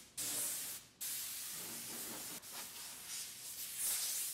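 Compressed-air blow gun hissing as it blows sawdust off a table saw's cast iron top. A short blast is followed, after a brief pause about a second in, by a longer uneven blast.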